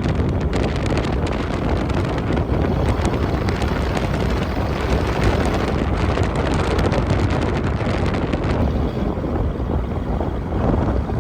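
A vehicle on the move: steady road and engine noise, with wind buffeting the microphone.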